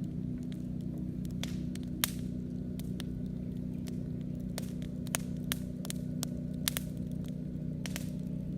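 Campfire crackling: irregular sharp pops from the burning wood, the strongest about two seconds in and a few more between five and seven seconds, over a steady low drone.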